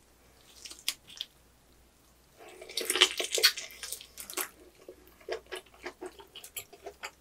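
Biting into a roasted pork knuckle: about two and a half seconds in, its crisp skin crackles loudly as it is bitten and torn, followed by wet chewing with small mouth clicks and smacks. A few small clicks come before the bite.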